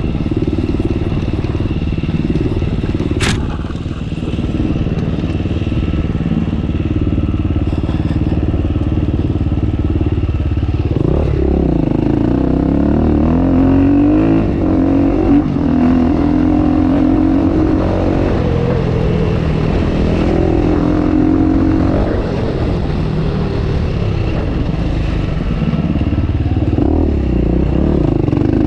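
Enduro motorcycle engine running continuously while riding off-road, its pitch repeatedly rising and falling with the throttle. There is a single sharp click about three seconds in.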